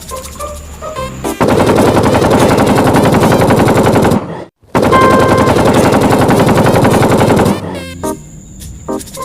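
Rapid automatic machine-gun fire in two long bursts with a short pause between them. The first burst starts about a second and a half in, and the second stops shortly before the end.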